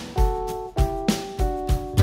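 Background music: held instrumental notes that change to a new chord about every half second, each change starting with a short hit.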